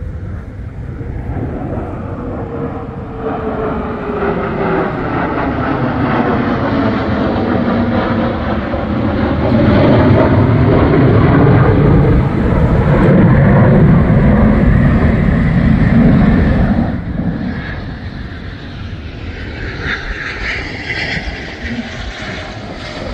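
A pair of fighter jets flying over, their jet engines roaring louder to a peak about midway with sweeping shifts in pitch, then fading, before another jet's roar starts to build near the end.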